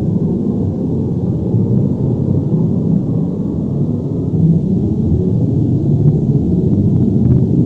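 Earthquake or avalanche rumble sound effect: a loud, continuous deep rumble with a slowly churning texture.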